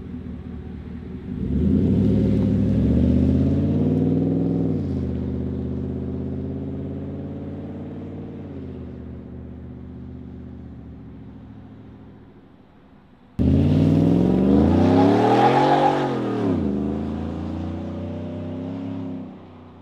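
2015 Ford F-150's 5.0L V8 through a 3-inch MBRP cat-back exhaust, accelerating twice. The first pull rises in pitch, eases off and fades slowly into the distance. The second, a hard takeoff, starts suddenly about thirteen seconds in, climbs steeply in pitch to a peak, then falls away and fades.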